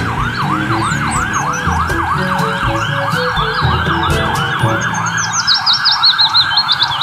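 Ambulance siren yelping in fast rising-and-falling sweeps, about three a second, over low road-traffic rumble. A second, higher warbling tone joins in over the last couple of seconds.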